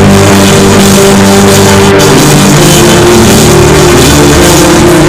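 Live band playing loud, with held keyboard chords over drums and cymbals.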